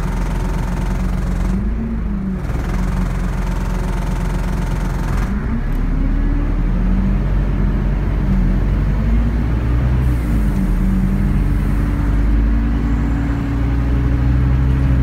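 2009 Scania N230UD bus's five-cylinder diesel engine heard from inside the saloon, its pitch rising and dropping back several times as the automatic gearbox changes up while the bus pulls away. From about two-thirds of the way in it runs steady and a little louder.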